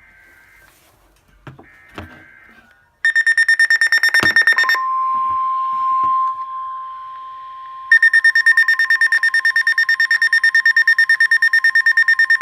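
NOAA Weather Radio receiver alerting for a severe thunderstorm warning. Faint data bursts of the digital alert header come first. About three seconds in, the receiver's alarm starts a rapid, loud beeping. This gives way to the steady 1050 Hz warning tone, and the rapid beeping comes back over it about eight seconds in.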